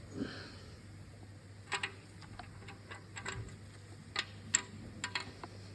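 Light metallic clicks and clinks at irregular intervals, about ten in all: steel tappets being pushed up and pulled out of a Ford GPW engine block and set down one by one.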